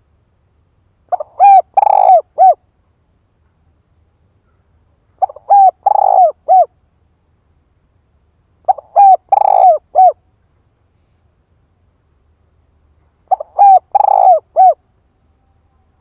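Spotted dove cooing: four matching phrases about four seconds apart, each a quick run of short coos with a fuller middle note and a final coo. It is the repeated calling song of a caged decoy dove, used to stir other doves into calling.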